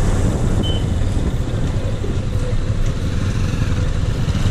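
Motorcycle engine running with a steady low rumble, heard from the bike itself as it slows from about 30 km/h to a crawl.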